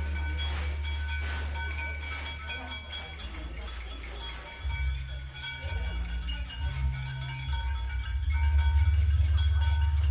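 Experimental music for percussion and live electronics: a deep drone that shifts pitch a few times midway and swells louder near the end, under several sustained high metallic ringing tones.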